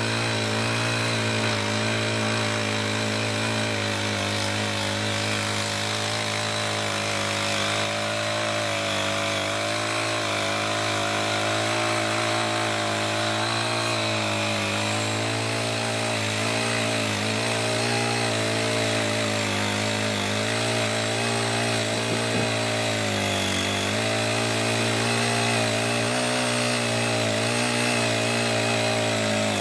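Small Honda GX35 four-stroke engine of a CY50 folding mini tiller running steadily, its pitch wavering slightly partway through.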